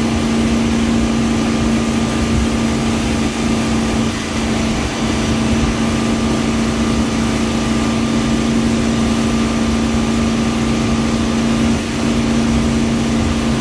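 Inboard engine of a wakesurf boat running steadily under way, a constant drone over the rush of the wake water.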